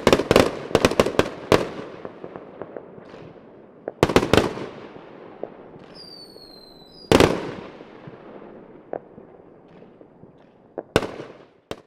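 Consumer aerial fireworks going off: a quick string of about eight bangs at the start, two more about four seconds in, then a whistle falling in pitch followed by a loud bang about seven seconds in, and a few more bangs near the end.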